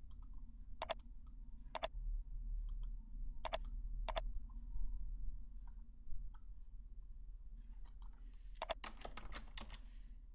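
Four sharp computer mouse clicks spread over the first four seconds as dropdown values are picked. Then, near the end, a quick run of about eight keystrokes on a computer keyboard as a name is typed. A faint low hum runs underneath.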